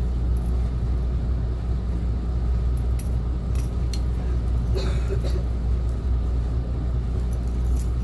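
Motorboat engine running with a steady low drone. A few light clicks or clinks come about three to five seconds in.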